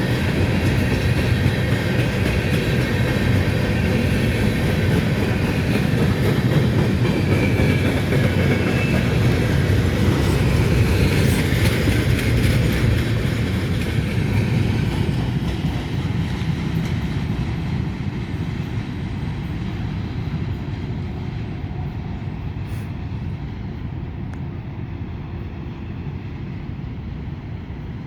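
Freight train of empty grain hopper cars rolling past on the rails, loud and steady at first, then fading away over the second half as the train moves off.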